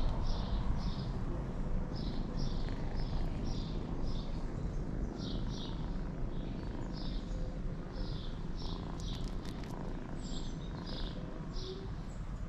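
A small bird chirping over and over, high short chirps in quick pairs and threes, over a steady low rumble.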